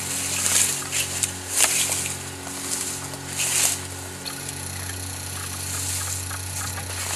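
Rustling and crunching in dry brush and grass, in irregular bursts that are strongest near the start and again about three and a half seconds in, over a steady low hum.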